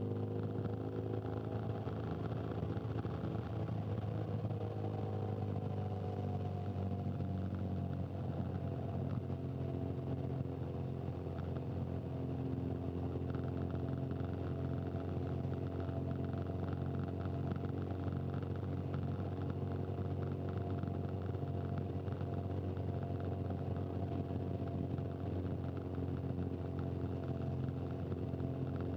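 Motorcycle engine running steadily at a low, even pace, its pitch gliding slowly up and down early on, then holding steady.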